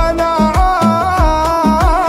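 Instrumental passage of an Arabic song: a held melodic line that slides up into its note at the start and wavers briefly near the end, over a steady beat of deep bass-drum hits.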